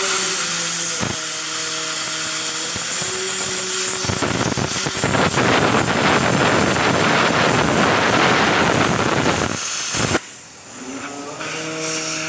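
Riland LGK-40 air plasma cutter hissing loudly as its arc cuts through a thick steel bar. The hiss grows louder and rougher about four seconds in, then cuts off sharply about ten seconds in, leaving a quieter hiss and a steady hum from the machine.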